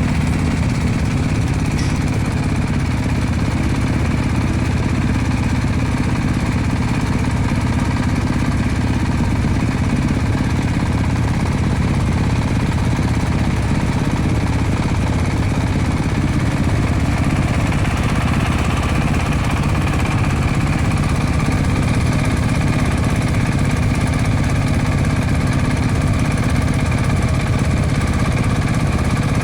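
Diesel engine of a wood shaving machine running steadily with a fast, knocking chug.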